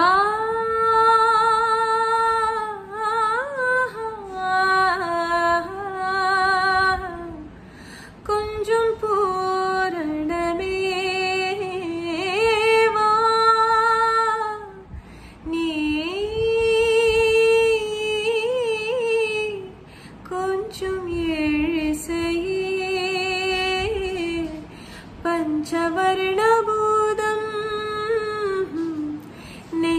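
A woman singing a song solo with no accompaniment, in long held notes with vibrato, phrase by phrase with short breaths between.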